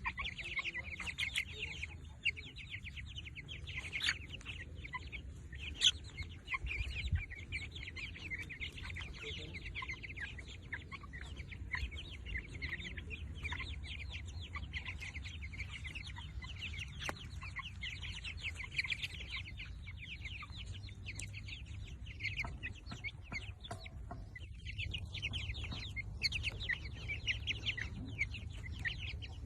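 Many birds chirping together, a dense stream of short overlapping chirps with a brief lull about 24 seconds in.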